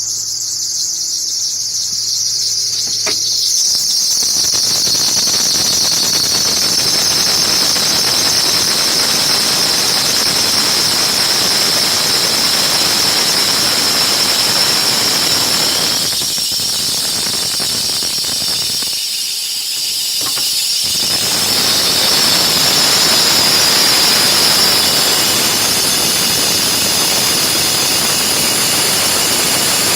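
Kia Ceed JD's accessory drive giving a loud, high-pitched whistling squeal with the engine just started on a cold morning. The pitch drops a little over the first few seconds, then holds steady over the engine's running noise, which grows about three to four seconds in. The owner first suspected the drive belt, but a retension did not cure it, and the dealer finally condemned a bearing in the alternator.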